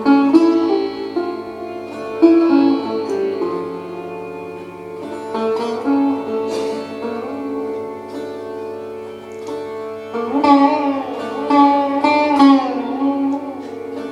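Sitar playing classical music: a run of plucked notes over a steady drone, with notes bent up and down in pitch from about ten seconds in.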